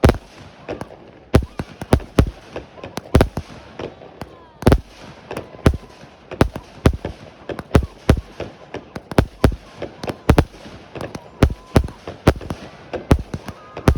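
Fireworks going off in rapid, irregular succession: sharp bangs and pops, about two a second, some close together.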